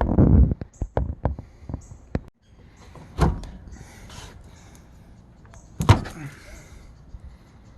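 A quick run of sharp knocks and clicks, then two single heavier knocks a few seconds apart, like hard objects being handled and set down.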